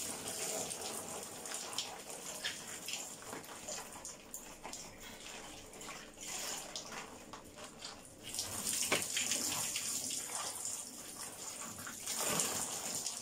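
Running water splashing as long curly hair is rinsed by hand under a tap, with scattered splashes and drips on a tiled floor. Near the end the splashing grows louder as water is poured over the hair from a plastic bowl.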